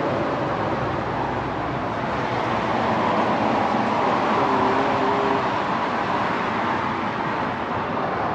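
Steady noise of road traffic going by, swelling a little in the middle, with a brief faint tone about halfway through.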